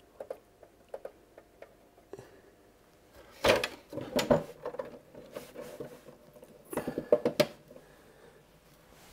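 Sharp clicks and light clatter of hard objects being handled, in two loud bursts about three and a half and seven seconds in, over a faint steady whine.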